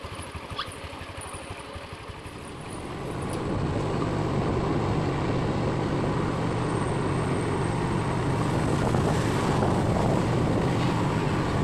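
Motor scooter engine running at idle, then growing louder from about three seconds in as the scooter rides off, with rushing wind and road noise over the engine.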